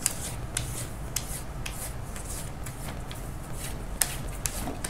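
Colored pencil scratching back and forth on paper in quick strokes, several a second, with a few sharp ticks and rustles of the sheet.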